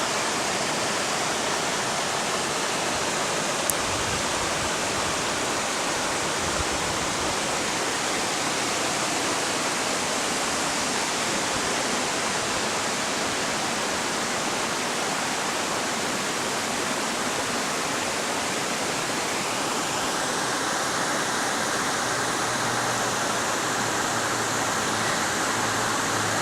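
River water rushing in a steady, unbroken rush.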